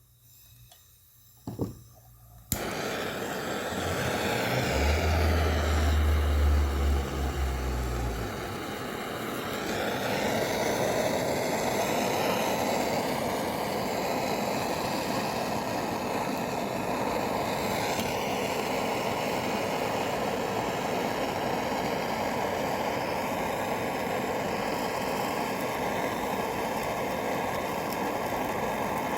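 A couple of sharp clicks, then a gas torch lights and burns with a loud, steady rushing sound while it heats a radiator joint for soldering. A deep hum rises under it for a few seconds near the middle.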